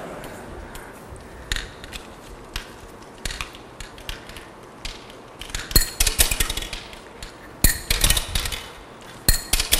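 Steel ball bearings clicking and clinking as they run down the sorting machine's ramp and are knocked by its servo-driven rotary stage into the collecting bins. Scattered single clicks at first, then quick clusters of clinks from about six seconds in.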